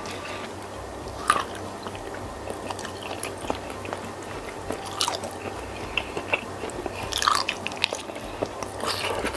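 Close-miked mukbang eating of a whole cooked cuttlefish in spicy sambal: the squid flesh is squeezed and pulled apart by hand, then bitten and chewed. The sound is wet squishing, with scattered sticky smacks and clicks and a few louder bites.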